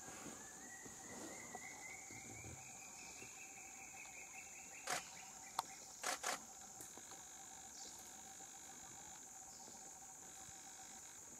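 Steady high-pitched insect chorus with a second, lower steady hum beneath it. A faint whine rises slowly in pitch over the first four seconds, and a few sharp clicks come around the middle.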